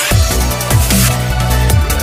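Electronic dance music with a heavy bass line and drum beat, the full beat coming in right at the start.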